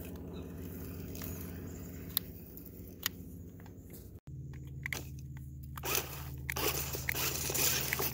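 Toy RC monster truck's paddle-tread tyres working through dry sand: a few faint clicks and crunches at first, then from about six seconds in a loud crunching and scraping as the wheels spray sand. A steady low hum runs underneath.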